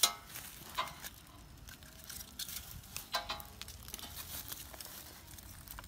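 Clicks and clinks of a steel earth-auger bit and its locking pin being handled, with a sharp clack at the start and scattered light knocks after. Two short pitched sounds come about one second in and about three seconds in.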